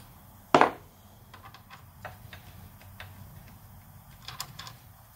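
Metal hand tools working on parts inside an open small-engine crankcase: one loud metallic clank about half a second in, then scattered light clicks and ticks.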